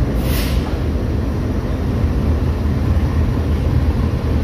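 GEU40 diesel-electric locomotive's engine running at the platform with a steady deep rumble. There is a short hiss about a quarter of a second in.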